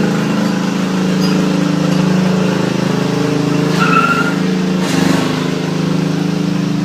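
Riding lawn mower engine running steadily. A brief high tone sounds about four seconds in, and a single sharp knock about a second later.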